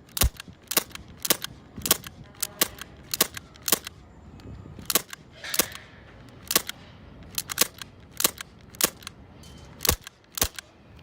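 Red Jacket CO2 airsoft pistol firing repeatedly, about twenty sharp shots at an uneven pace of roughly two a second.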